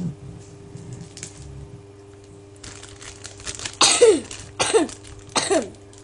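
A person coughing three times near the end, a little under a second apart, after some soft rustling of a plastic bag.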